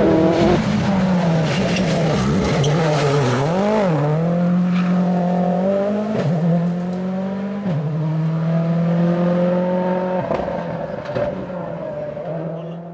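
A World Rally Car's 1.6-litre turbocharged four-cylinder engine running hard. Its note swings down and back up about three seconds in, then holds with a few sudden steps in pitch as the driver changes gear.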